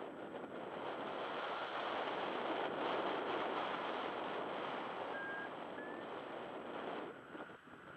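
Rushing airflow buffeting the microphone of a camera worn in paraglider flight: a steady wind noise that eases about seven seconds in. Two short, faint high beeps sound about five seconds in.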